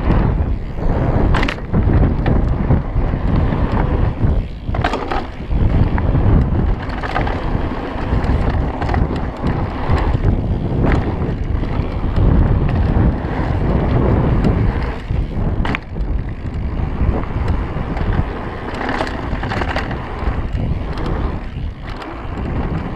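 Wind buffeting an action-camera microphone as a mountain bike rides a dirt pump track, with the tyres rolling over packed dirt and gravel. A few sharp clacks and rattles from the bike come through, about a second and a half in, near five seconds, and twice more later.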